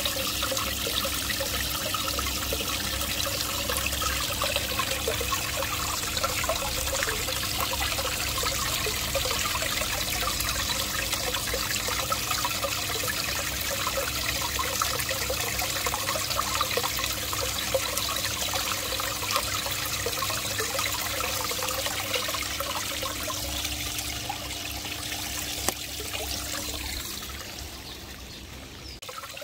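Water running and trickling steadily into a garden goldfish pond, with a faint steady hum underneath; it drops lower near the end.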